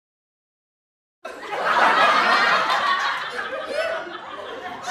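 Silence, then about a second in, laughter starts abruptly. It is loudest just after it begins and eases off toward the end.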